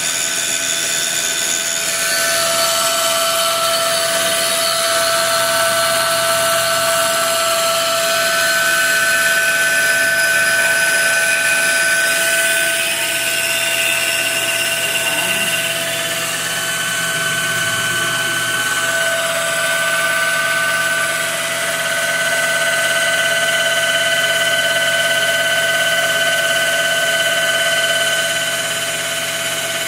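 Homemade CNC machine cutting a wooden block with an end mill: the spindle runs steadily while several whining tones start, stop and shift in pitch every few seconds as the belt-driven stepper motors move the axes.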